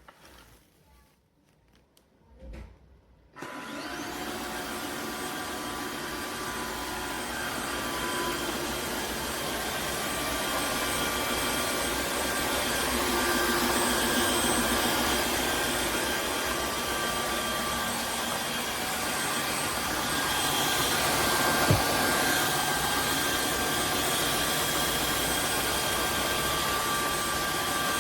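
Tineco Floor One S9 Artist wet-dry vacuum cleaner switching on about three seconds in and running steadily, its motor noise carrying a steady whine. One short knock about three-quarters of the way through.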